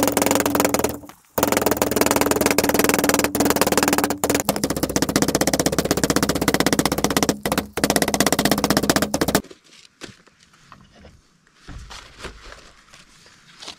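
Large knife rapidly chopping and mincing meat and herbs on a wooden block: a fast, steady run of chops with a few brief pauses, stopping about nine seconds in. Only faint handling sounds follow.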